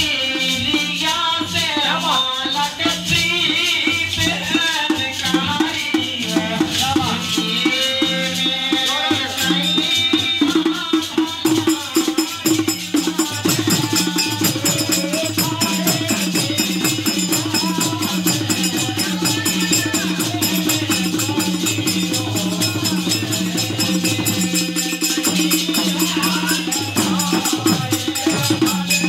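Live Indian folk music: a woman singing with harmonium and dholak drum. A steady harmonium drone runs under a fast, even hand-drum rhythm, and a bright rattling percussion comes in about eleven seconds in.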